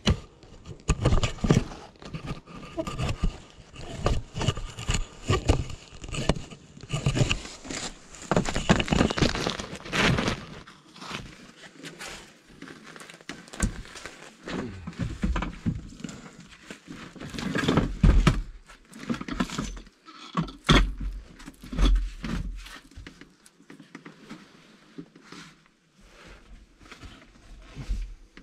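Handling and movement noise in a cramped attic: irregular rustling, knocking and scraping as a camera is set down and a person in a protective suit works his way between timber rafters. The knocks come thick and fast for about the first ten seconds, then more sparsely.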